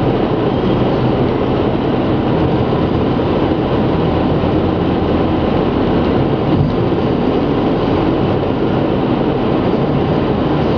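Steady road noise heard inside the cabin of a car driving on a motorway: an even rumble of tyres on asphalt and engine that holds at one level throughout.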